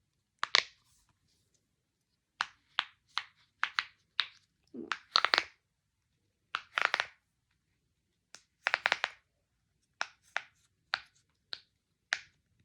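Silicone pop-it fidget toy being pressed: a string of sharp, short pops at an irregular pace, some coming in quick clusters of two or three.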